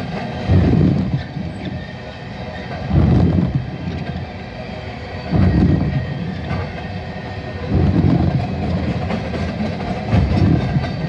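Empty CSX Bethgon coal gondolas rolling past, their wheels clattering in heavy low bursts about every two and a half seconds over a steady rumble.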